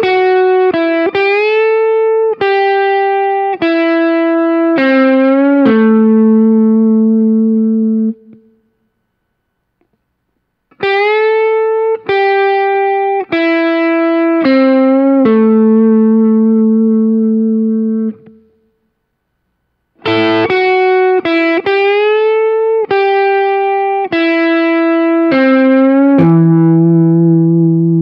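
Hollow-body electric guitar picking a short blues lick in A three times over, with string bends, each pass ending on a held low note. The first two passes are followed by a pause of about two seconds.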